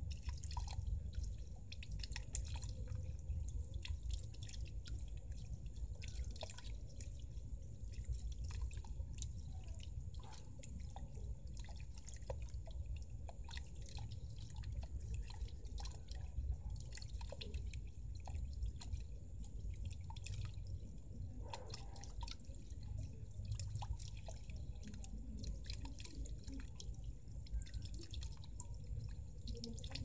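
A solar-powered fountain's jet of water falls and splashes into a small pond, with many quick irregular drips and patters over a steady low rumble.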